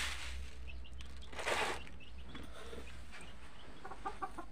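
Uncooked rice poured from a small steel measuring cup onto a bamboo winnowing tray: a sharp clatter at the start, then a brief rushing hiss of grains about a second and a half in. Small birds chirp throughout, and hens start clucking near the end.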